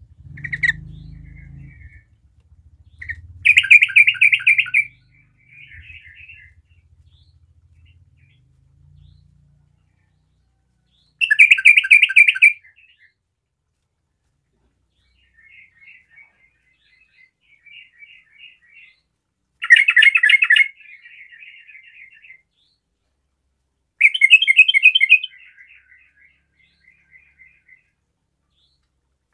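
Yellow-vented bulbul singing: four loud, bubbly phrases of a little over a second each, spaced several seconds apart, with softer chattering notes in between.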